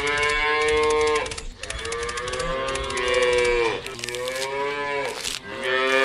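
Cows mooing: four long, drawn-out moos one after another, with brief gaps between them.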